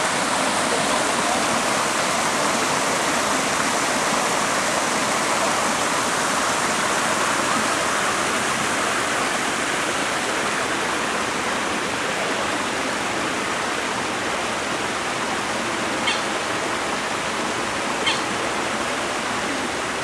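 Water of a rock-lined stream rushing and splashing over stones, a steady rush. Two short high sounds about two seconds apart near the end.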